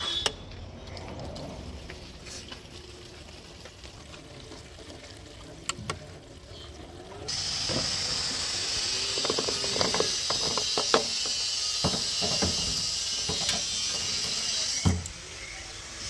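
Fuel poured from a plastic jerrycan through a bottle funnel into a tractor's fuel tank. After some quiet clicks and knocks from handling the can, a steady hissing pour with small gurgles and splashes starts about seven seconds in. It stops with a knock about a second before the end.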